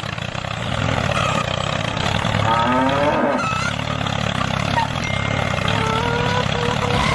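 A steady engine-like rumble, with a cow-like moo about two and a half seconds in and a run of short repeated tones near the end.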